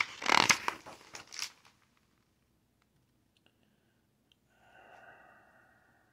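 A large paper page of a hardcover picture book being turned by hand: a brief rustle lasting about a second and a half.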